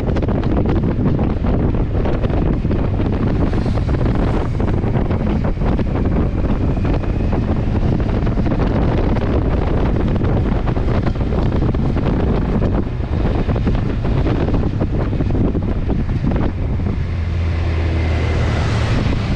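Wind rushing over the microphone of a motorcycle-mounted camera at riding speed, with the motorcycle's engine running underneath. The low engine note grows heavier a few seconds before the end.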